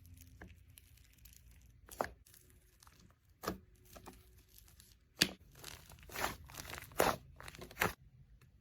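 Slime being squeezed and stretched by hand, giving a string of short crackly squelches, about six of them, the loudest in the second half.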